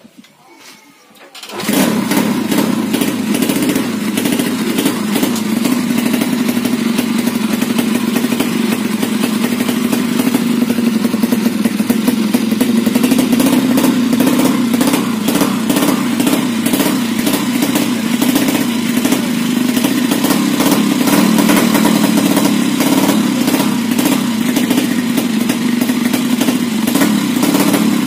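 Honda C70 motorcycle with a 200cc horizontal 'sleep' engine running steadily and loud, with a fast, even exhaust beat, coming in suddenly about two seconds in.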